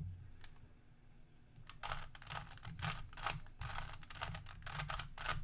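Plastic Rubik's Cube faces being turned quickly by hand: a fast run of small clicks and clacks that starts about two seconds in.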